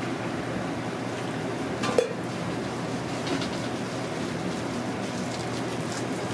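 Hotteok frying in a shallow pan of hot oil, a steady sizzle, with a sharp metallic clink about two seconds in.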